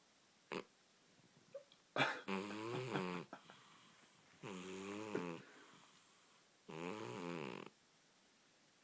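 A cat snoring: three pitched snores, each about a second long and about two seconds apart, with a brief click just before the first.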